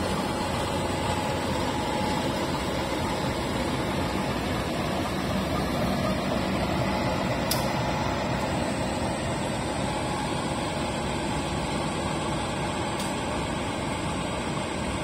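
Diesel-electric locomotive idling while its train stands at the platform before departure, a steady engine hum.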